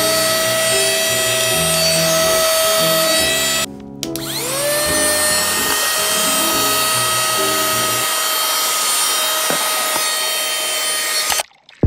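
Small cordless handheld car vacuum cleaner running with a steady high motor whine while sucking up bits of foam packing. It cuts out for a moment about four seconds in, spins back up with a rising whine, and stops shortly before the end.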